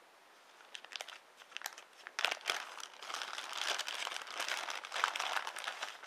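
Thin clear plastic bag crinkling as it is opened and a small boxed item is drawn out of it: a few scattered crackles at first, turning into dense, continuous crinkling from about two seconds in.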